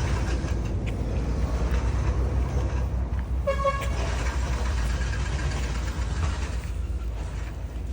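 A motor vehicle's steady low engine and road rumble, with one short horn toot about three and a half seconds in.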